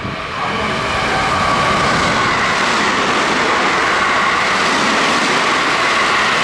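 Electric train running at the platform: a loud, steady rumble of wheels and running gear that builds over the first second or so and then holds.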